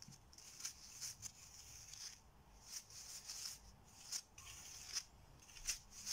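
Fingers stirring a dry flour mixture in a steel bowl: faint, soft swishing rustles, about two a second, as the hand works through the flour and brushes the bowl.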